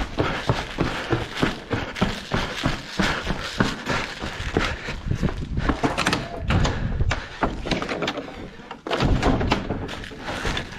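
Irregular thumps and knocks in quick succession, heaviest a little past halfway and again near the end.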